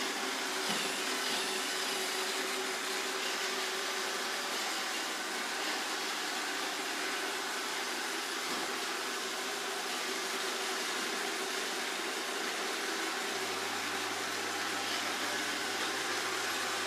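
iRobot Roomba 780 robot vacuum running steadily with a mop fitted in place of its scrubbing brush, a continuous whirring motor noise. A low hum joins about three-quarters of the way through.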